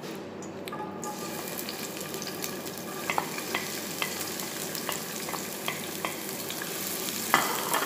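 Chopped onions dropping into hot oil in a frying pan and sizzling, the hiss swelling about a second in with scattered crackles and pops and a louder rush near the end: the start of sautéing the onions until golden brown.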